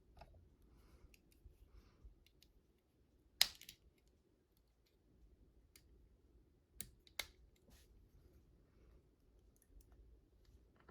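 Sharp clicks and light taps of ceiling fan motor parts being handled, the loudest about three and a half seconds in and a pair of clicks near seven seconds.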